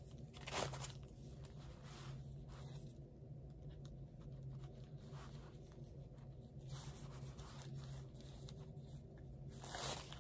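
Thin plastic tablecloth sheets rustling and crinkling faintly as their layers are pulled apart and fluffed out by hand.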